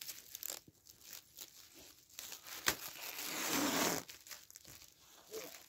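Stretch film being pulled off its roll and wrapped around a branch frame, crackling and crinkling, with a sharp snap about two and a half seconds in and then about a second of louder, steady noise as a length of film unrolls.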